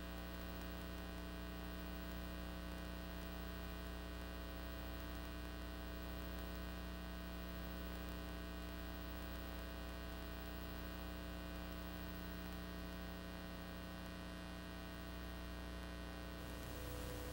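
Faint, steady electrical mains hum with many overtones over light hiss: line noise on an otherwise silent audio track behind colour bars on an analogue video tape.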